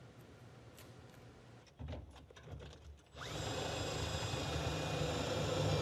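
Cordless drill spinning up about three seconds in and then running steadily, fastening a metal bracket to the roof inside a vehicle's cabin. A few light knocks of handling come just before it starts.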